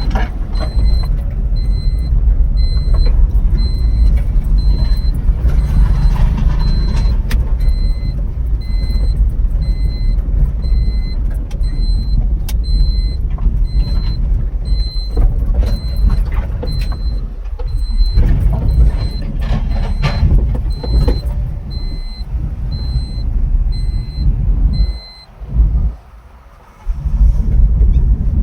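Steady low rumble of a car on the move, with a faint high beep repeating about every 0.7 seconds. The sound drops away twice, briefly, near the end.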